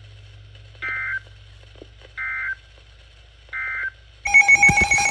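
Three short identical warbling data bursts from an emergency-alert broadcast, about a second and a half apart: the SAME digital code that marks the end of an alert message. About four seconds in, a much louder alert tone cuts in over a rattle of clicks.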